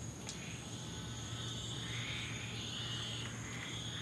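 Night chorus of insects and frogs: a steady high insect trill with frog calls rising and falling over it, and a low steady hum underneath. A faint click about a third of a second in.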